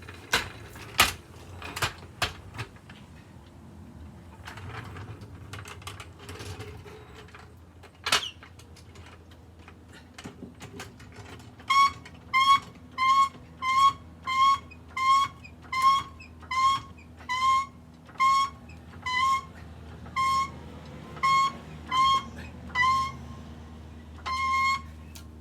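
Hand-pumped hydraulic floor jack being worked to raise a car, giving a short high squeak with each pump stroke, about one and a half strokes a second, starting about twelve seconds in. Before that come a few clicks and a sharp metallic knock.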